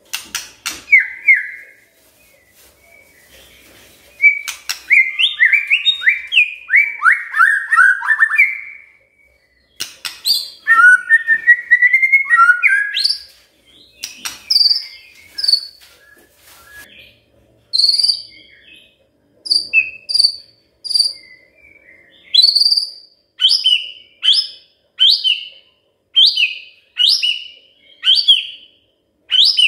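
White-rumped shama singing: loud whistled phrases, including a run of notes falling in pitch, then from about halfway a string of short, sharp, high calls repeated about once a second.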